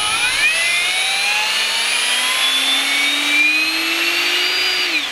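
Ryobi R18PDBL-0 18V brushless drill's motor running with no load in second speed, its whine climbing steadily in pitch for about five seconds. Right at the end it starts winding down: the drill cutting out mid-trigger, a fault the owner cannot explain.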